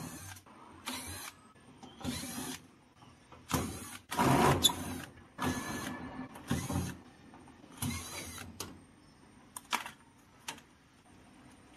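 Cordless electric screwdriver running in short bursts, about eight times, as screws come out of a washing machine's back panel.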